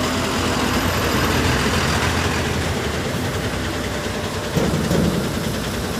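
Engines idling in stopped traffic: heavy trucks' diesel engines close on both sides, steady, with a brief louder swell of engine sound about four and a half seconds in.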